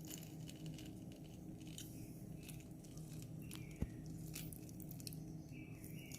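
Half a lemon being squeezed by hand: faint wet squishing with a few small clicks and a light knock about four seconds in.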